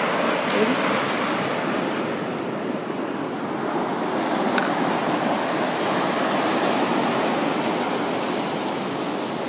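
Ocean surf breaking and washing up the beach: a steady rush of noise that swells and eases slightly.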